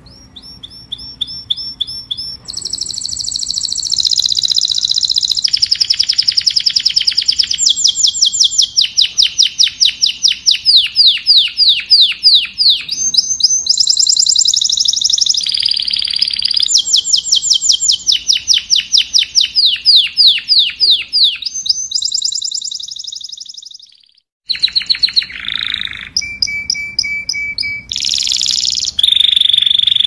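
Domestic canary singing a long song of rapid trills: runs of one quickly repeated note after another. It breaks off briefly about four-fifths of the way through, then picks up again.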